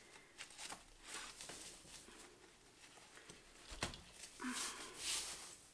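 Faint rustling of a fabric gift bag and its ribbon being untied and pulled open around a bottle, with scattered soft clicks, a soft knock just before four seconds in, and a louder rustle near the end.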